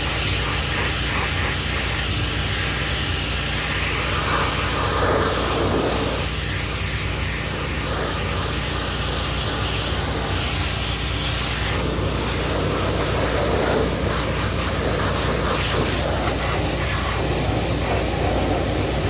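AGT hot water pressure washer spraying: a steady hiss of the high-pressure hot water jet over the machine's engine running steadily, blasting old grease off equipment.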